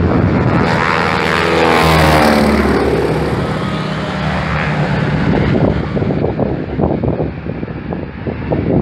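Single-engine propeller warbird in Japanese torpedo-plane markings making a low fly-by. The engine and propeller drone swells to its loudest about two seconds in and drops in pitch as the plane passes, then fades as it climbs away, with wind buffeting the microphone near the end.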